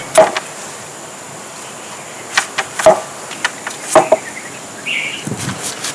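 Large knife cutting through a small jackfruit, the blade knocking sharply on the cutting board several times at irregular intervals.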